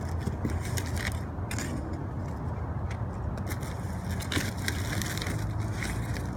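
Rustling and crinkling of packaging as a shipment of books is handled and unpacked, in irregular short bursts over a steady low rumble.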